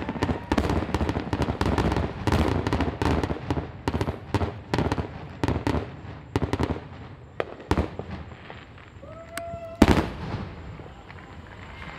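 Fireworks finale barrage: a rapid string of shell bursts and bangs, dense for the first six seconds, then thinning out, with one last loud bang about ten seconds in.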